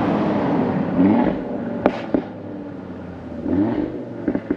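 Audi RS3 8V's 2.5-litre five-cylinder engine running through its valved RS exhaust. It revs up briefly twice, about a second in and again past three seconds, with sharp exhaust cracks just before two seconds in and near the end.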